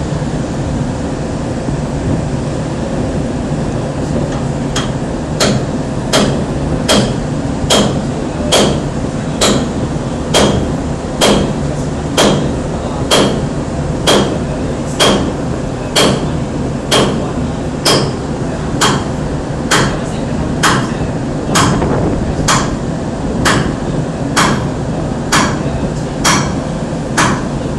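Steady low rumble of a vessel's engine, with regular metallic clanks from about five seconds in, roughly one a second, each ringing briefly like a hammer on steel.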